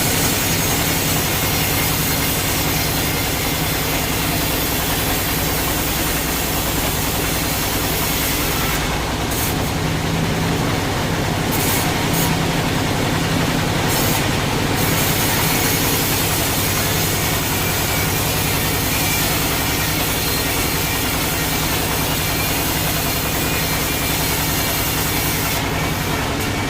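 Sawmill machinery running steadily: a loud, even mechanical noise with a constant low hum.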